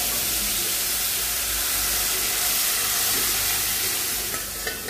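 Boiled masoor dal poured into hot mustard oil with fried garlic in a kadai, sizzling with a steady hiss that eases off near the end.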